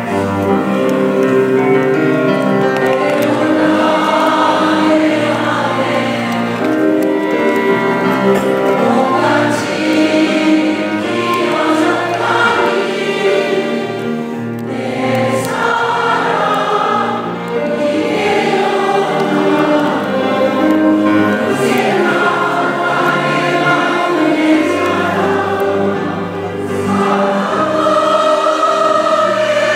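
A large choir singing sustained chords in parts with instrumental accompaniment, in long phrases with short breaths between them.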